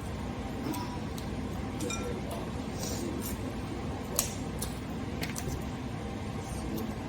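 Snow crab shells being cracked and picked apart by hand: a scatter of sharp clicks and small cracks, the sharpest about four seconds in.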